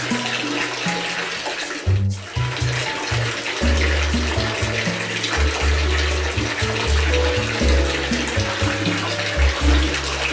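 Bathtub faucet pouring a steady stream into a nearly full tub of water, with a brief break about two seconds in. Background music with a bass line plays over it.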